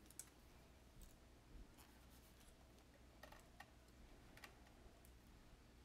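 Near silence with a handful of faint, scattered clicks and ticks from beading wire, beads and pliers being handled.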